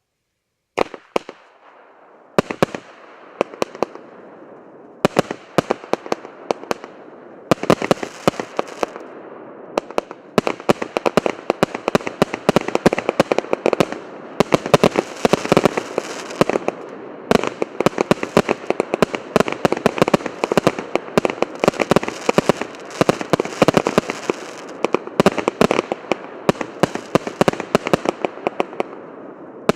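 A 100-shot, 1-inch consumer firework battery (cake) firing. Rapid launch thumps and aerial bursts start about a second in and grow denser, layered with the constant crackle of crackling peony and palm effects.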